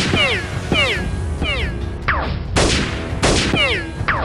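Dubbed-in gunfire sound effects: sharp shot bursts with quick, repeated falling whines between them, over background music.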